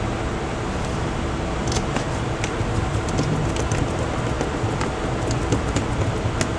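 Steady mechanical hum, like a fan or air conditioner, with scattered small clicks and taps.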